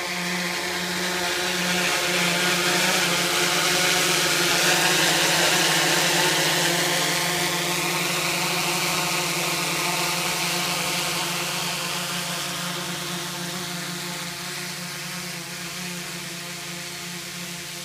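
DJI Inspire quadcopter hovering low, its four rotors giving a steady whirring hum over the rushing hiss of its downwash blowing across the driveway. The sound swells over the first few seconds, then slowly fades.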